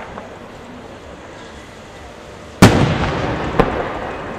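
Large aerial firework shells bursting: one loud boom about two-thirds of the way in, echoing and rumbling away, with a sharper crack about a second after it.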